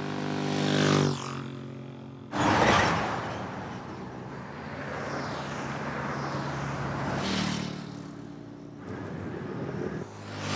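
Road traffic: cars passing one after another, each a whoosh that swells and fades, with an engine hum under some of them. The loudest pass starts suddenly a little over two seconds in.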